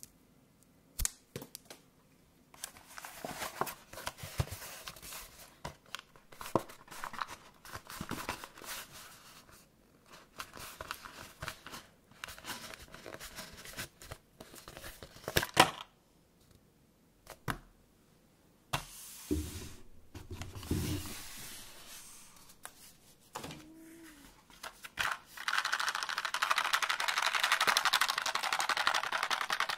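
Cardboard mailer being torn open by hand in close-up, with sharp rips and clicks and stretches of tearing and crinkling paper. A few dull knocks come after the middle. Near the end the plastic-and-card blister pack of foam ear tips is handled, giving a steady, dense rustle.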